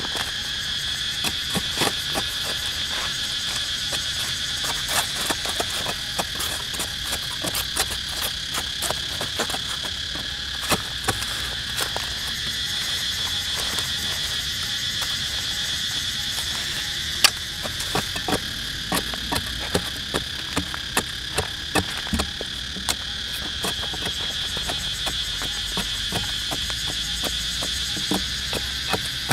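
Steady chorus of crickets, a continuous shrill trill, over irregular scrapes and chops of a machete blade digging into dry sandy soil, with one sharper knock a little past halfway.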